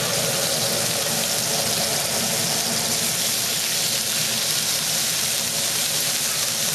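Minced garlic sizzling in hot oil in a wok, a steady even hiss. The heat is too high.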